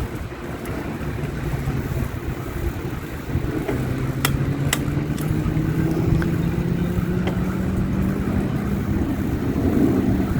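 A motor vehicle's engine hum that grows louder about a third of the way in and rises slowly in pitch, over low rumbling wind noise on the microphone, with a couple of sharp clicks.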